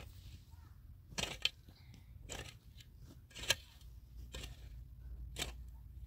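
A handful of short, sharp clicks, roughly one a second, over a steady low rumble.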